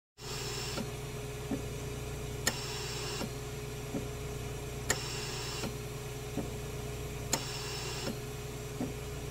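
Repeating mechanical sound over a steady low hum: a sharp click about every two and a half seconds, each followed by a short hiss and a fainter tick, in an even machine-like cycle.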